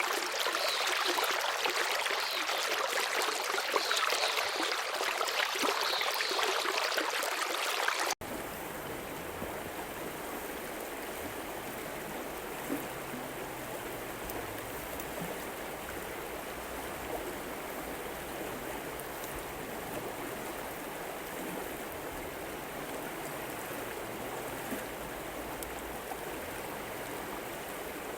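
Stream water rushing steadily. About 8 seconds in it cuts abruptly to a quieter, deeper, steady rush of water.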